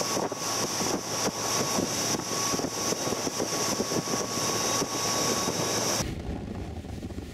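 Small motorboat under way at speed: engine running, the wake rushing and spraying alongside, and wind buffeting the microphone. About six seconds in the sound changes abruptly to a duller, lower rumble.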